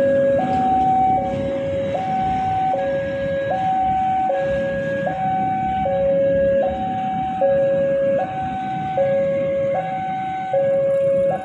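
Railway level-crossing warning alarm sounding its two-tone hi-lo electronic signal, each tone held about three quarters of a second and repeating steadily. It is the warning that a train is approaching the crossing.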